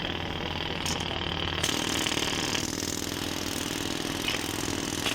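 An engine running steadily at idle, with a thin high whine over it that stops about two and a half seconds in.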